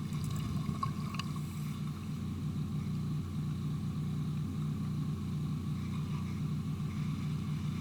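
Steady low rumble of underwater ambience picked up by a camera underwater, with a few faint ticks about a second in.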